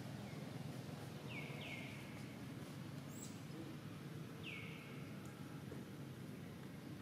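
Faint outdoor ambience with a steady low rumble and a bird's short, high chirps that slide downward: a quick pair about a second and a half in and another about four and a half seconds in.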